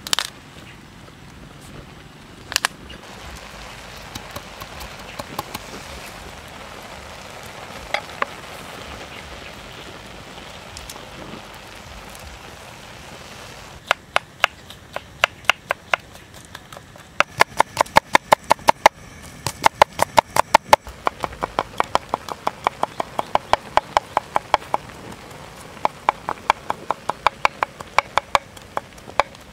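Kitchen knife on a bamboo cutting board: two sharp knocks as the blade crushes garlic cloves, then, about halfway through, runs of fast chopping strokes, about four or five a second, mincing the garlic. A steady faint hiss lies under it all.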